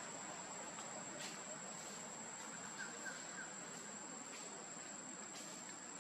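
Steady high-pitched insect drone, like crickets, over a soft background hiss, with a few faint clicks and three quick, faint chirps about halfway through.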